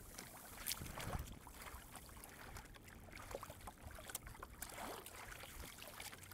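Faint water lapping and trickling around a small sailing dinghy's hull, with scattered light clicks and ticks.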